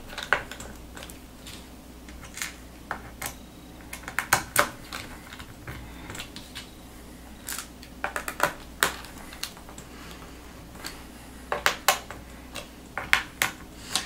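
Small screwdriver turning screws back into the plastic underside of a laptop: scattered sharp clicks and ticks of the driver, screws and plastic case, some in quick little clusters.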